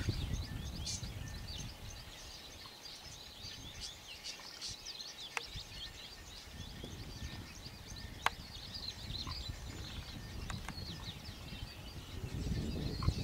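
Many short, high bird chirps over a low rumble, which swells near the end; two sharp clicks a few seconds apart near the middle.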